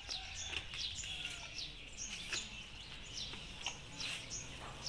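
Small birds chirping over and over: quick high chirps that drop in pitch, about three a second.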